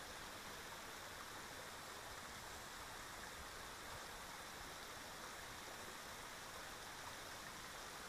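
Small waterfall in a stream bed, its water rushing steadily.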